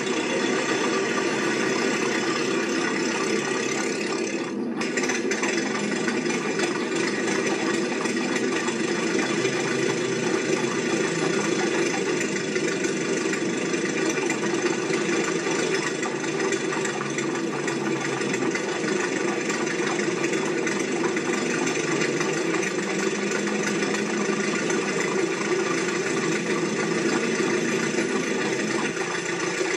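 A steady mechanical running sound with a rattle, like an engine idling.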